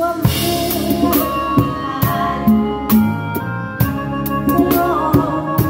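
A Thai mor lam band playing live: an acoustic drum kit keeps a steady beat of drum and cymbal hits under a sustained keyboard melody and a bass line.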